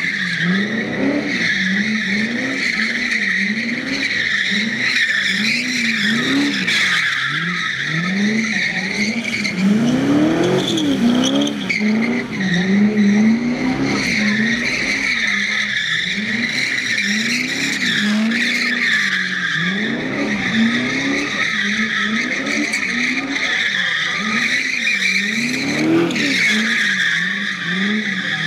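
A Corvette's V8 revving up and down in quick, repeated swoops while it spins donuts, with its rear tyres squealing continuously as they spin on the pavement.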